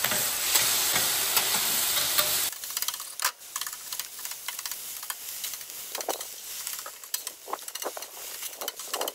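Water sizzling and hissing on a hot stainless steel griddle plate while a metal scraper pushes the cooked-on residue across it, deglazing it clean. The loud sizzle cuts off suddenly about two and a half seconds in, leaving quieter scrapes and clicks of the scraper on the steel.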